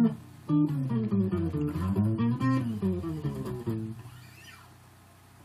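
Bass guitar: two strings plucked together with their pitch bent smoothly up and then back down, as a sliding sound effect. The note fades out about four seconds in.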